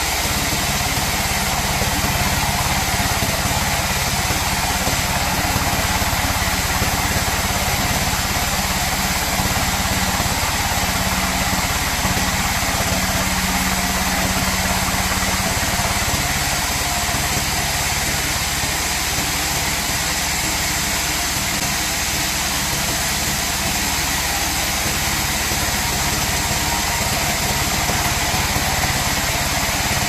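Large band sawmill running steadily as its blade saws teak wood on the carriage, a continuous loud machine drone. A low hum in it grows stronger for a few seconds midway.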